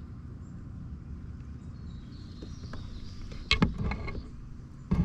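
Sounds of a kayak on the water: a steady low rumble, with a short cluster of sharp knocks and clatters about three and a half seconds in and another knock right at the end.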